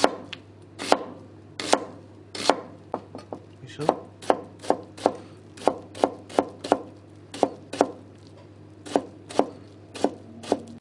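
Kitchen knife slicing an onion on a plastic cutting board: sharp knocks of the blade striking the board, spaced out at first, then quicker, about three a second, through the middle, then slowing again, over a faint steady low hum.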